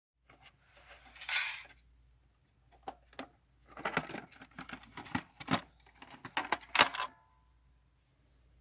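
Small hard parts clicking and clattering as they are handled and set down, after a brief scraping rustle about a second in; the loudest clack near the end leaves a short metallic ring.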